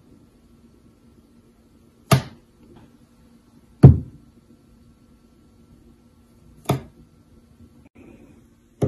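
Four sharp knocks, each with a low thud, spaced about two seconds apart: pieces of fruit set down or tapped on a hard kitchen countertop.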